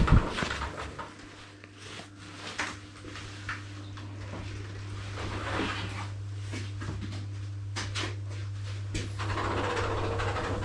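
Steady low hum in a small room, with scattered rustles, soft knocks and breathy sounds, and a louder bump just at the start.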